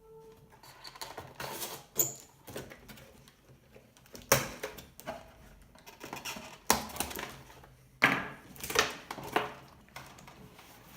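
Packaging being handled and opened: an irregular series of rustles, clicks and knocks, a few of them sharper and louder.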